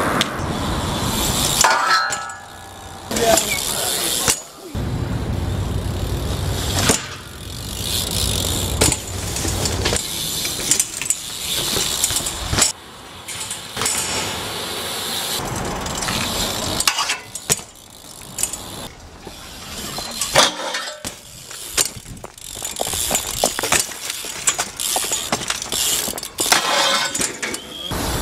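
BMX bikes ridden on concrete and asphalt: tyres rolling on pavement, metallic clinks and clanks of the bike striking rails and ledges, and sharp landing impacts. The sound changes abruptly several times as short clips follow one another.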